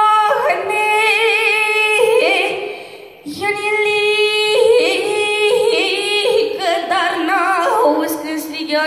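A boy singing a Romanian folk song solo into a microphone, in a high child's voice: long held notes with wide vibrato and quick ornaments, with a short breath pause about three seconds in.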